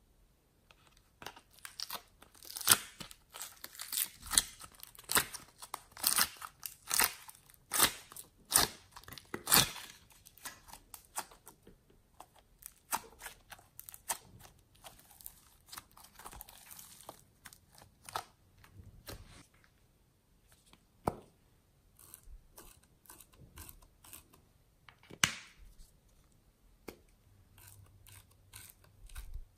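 Soft modelling clay being peeled out of a plastic tray and pulled apart by hand, giving a run of sharp crackles and small tearing sounds. They come thick and fast for the first several seconds, then grow sparser.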